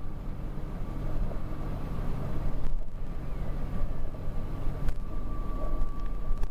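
Fendt tractor's diesel engine running steadily as it pulls a loaded Bergmann manure spreader over a field, with a thin steady whine above it and a couple of sharp knocks about a third and three quarters of the way through.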